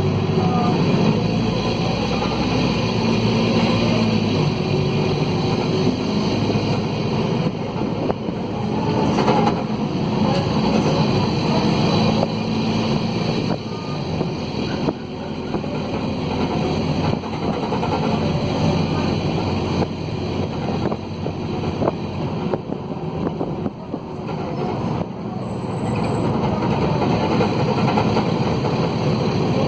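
Mercedes-Benz OM904LA four-cylinder diesel in a midibus running under way, loud and rasping from a broken exhaust, with the Allison automatic gearbox. The engine note rises and falls as the bus pulls away and eases off.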